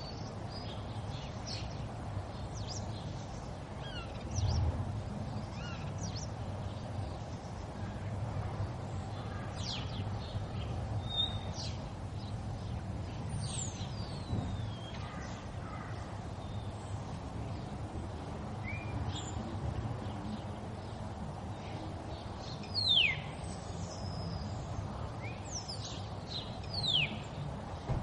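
River water running steadily, with scattered bird calls over it, among them sharp downward-sweeping calls, loudest twice near the end. A brief low thump about four seconds in.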